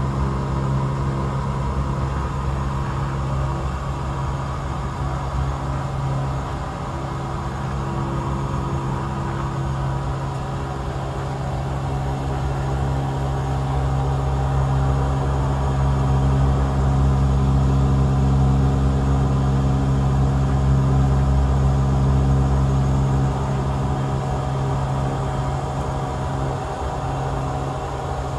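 Cessna Caravan's single Pratt & Whitney PT6A turboprop engine and propeller, heard from inside the cabin, running steadily with a low propeller hum. It grows louder for several seconds past the middle, then eases back.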